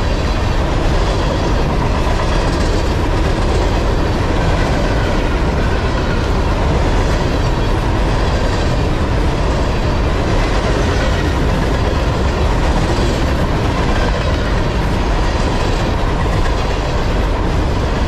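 Empty garbage container cars of a Norfolk Southern freight train rolling past at speed. Their wheels clatter on the rail in a steady, loud rumble.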